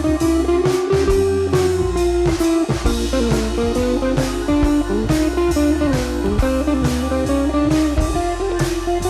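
Background music: a blues-style electric guitar playing a bending lead over bass and a steady drum beat.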